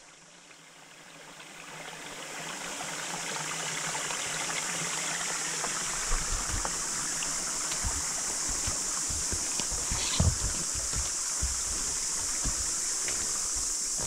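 Steady rush of a forest stream, with a constant high hiss above it. Low, uneven thumps of horses moving through the water and undergrowth come in from about six seconds, with one louder knock about ten seconds in.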